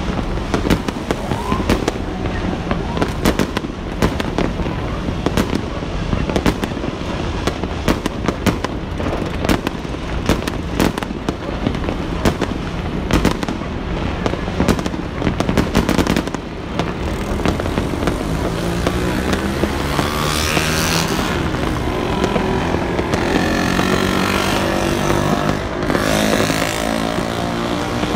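Aerial fireworks going off in quick succession, many sharp bangs and crackles. About halfway through the bangs thin out and a steady rushing noise, like a vehicle passing, swells and holds.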